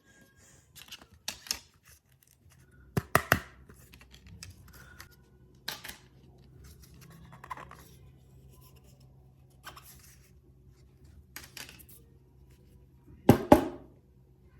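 Intermittent sharp clicks and short scratching sounds of small hand tools working on a phone's parts, loudest in a pair of clicks about three seconds in and another pair near the end.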